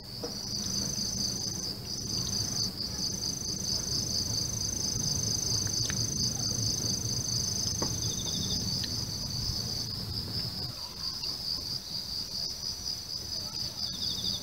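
Insects singing in a continuous, rapidly pulsing high-pitched chorus, with a second steady high insect tone above it that breaks off about two-thirds of the way through. A low rumble underneath fades out near the end.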